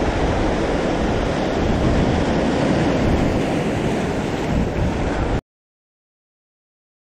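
Sea surf washing in over a rocky shore, a steady rushing wash that cuts off suddenly about five seconds in, leaving dead silence.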